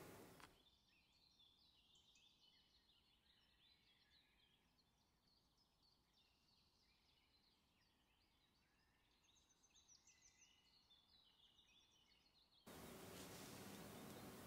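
Near silence with faint, rapid bird chirping throughout. A steady background hiss cuts out about half a second in and comes back near the end.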